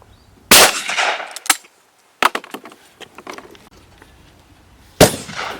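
Two over-and-under shotgun shots at clay targets, about four and a half seconds apart, each a loud blast with a decaying echo. Between them come sharp clicks and knocks.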